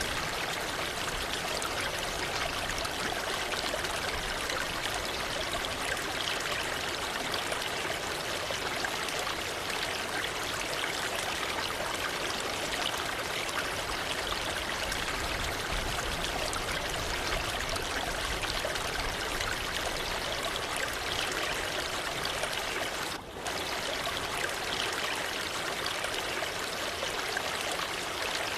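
Waterfall: a steady rush of falling water, with a momentary drop in level about 23 seconds in.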